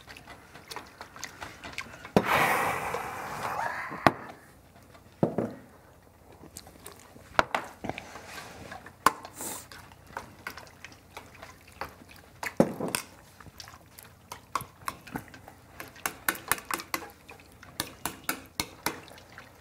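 Kitchen clatter: utensils clicking and scraping against bowls and dishes, with a short rush of liquid about two seconds in. The clicking grows quicker and denser near the end.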